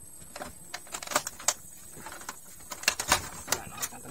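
Hard plastic clicks and knocks from an Epson L360 printer's casing being handled and worked apart by hand: a string of sharp snaps and taps, loudest about three seconds in.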